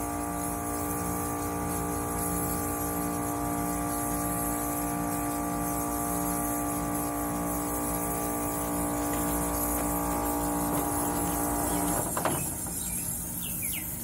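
WCI dehumidifier's compressor running with its fan motor dead: a steady hum with a slow, regular pulsing. About twelve seconds in the hum's main tone stops with a short knock.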